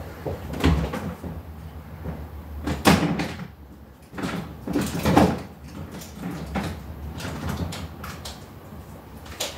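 Fishing tackle being rummaged through and handled: irregular knocks, clunks and rustles as items are moved about, with the loudest clatter about three and five seconds in.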